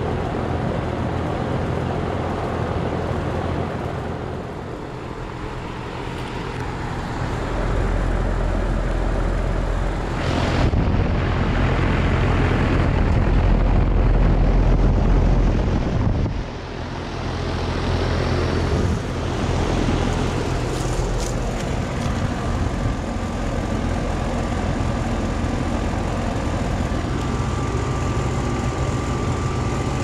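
2016 Armstrong Air 2.5-ton central air conditioner's outdoor unit running: a steady low hum under the rush of air from the condenser fan, louder for a stretch in the middle.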